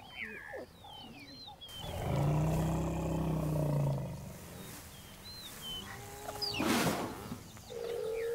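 Savanna wildlife ambience: birds chirping and whistling, then a long, deep animal call about two seconds in that lasts about two seconds. A short, loud burst of noise comes about seven seconds in, and a steady held tone begins near the end.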